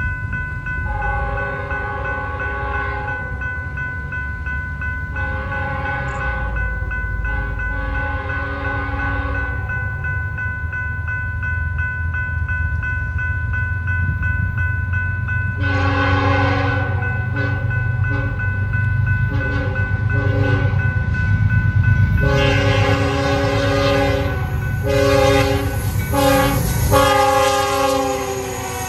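Horn of an approaching BNSF-led freight train sounding a multi-note chord: three long blasts in the first ten seconds, then after a pause a second run of long and short blasts. Under it the rumble of the diesel locomotives grows steadily louder as they come up and pass close by near the end.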